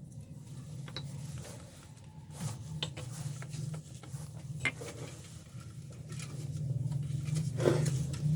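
Canon LBP 2900 laser printer mechanism: a steady low hum with scattered clicks, creaks and light knocks from its plastic parts and gears.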